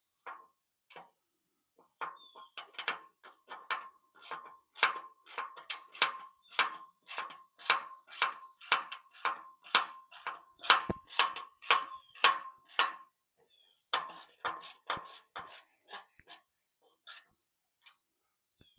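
Metal hardware being worked on the flag pole: a run of sharp metallic clicks, two or three a second, over a steady ringing tone. The clicks thin out and stop a few seconds before the end.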